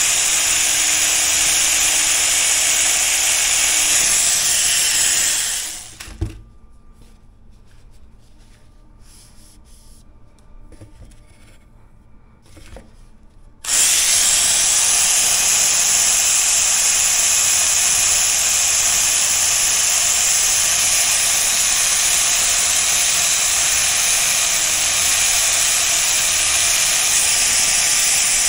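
Power tool resurfacing a steel tailor's-shears blade to take off pits and discoloration, running with a steady hiss. About five seconds in it winds down and stops, followed by a knock and several quiet seconds of faint handling sounds. Then it starts again abruptly and runs steadily.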